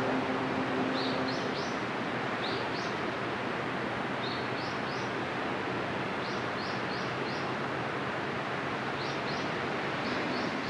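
A ship's horn trails off in the first second and a half. Then a steady rushing noise follows as the cruise ship Westerdam passes close, with small birds chirping in quick runs of two to four short rising notes every second or two.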